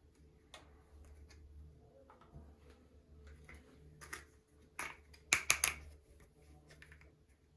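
Pieces of a miniature toy kitchen set being handled during unboxing, giving scattered light clicks and taps, with a quick run of three sharp clicks about five and a half seconds in, over a faint steady hum.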